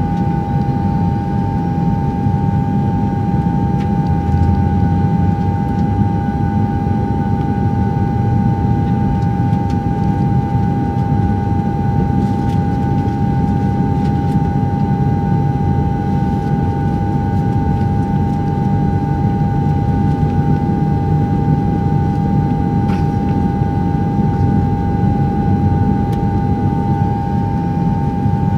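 DJI Phantom 2 quadcopter's motors and propellers buzzing at a steady, high, unchanging pitch, picked up close by the camera mounted on the drone, with a low rushing noise underneath.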